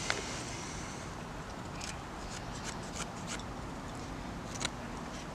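Light, scattered clicks and scrapes of split dry wooden kindling being handled and set down, with a knife blade worked against a stick near the end.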